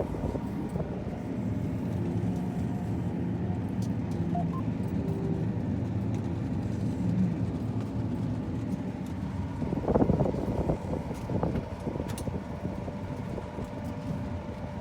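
Large diesel farm machine running steadily at working speed, its engine a constant low drone, with a brief louder rattle or clatter about ten seconds in.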